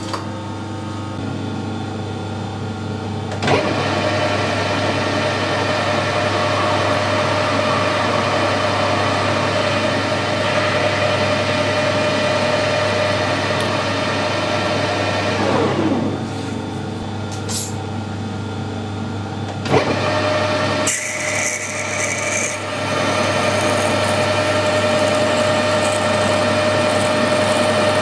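Metal lathe running while a twist drill bores into a brass bush spinning in the chuck. Just past the middle the tone falls away and it goes quieter for a few seconds with a click, then the running and drilling pick up again.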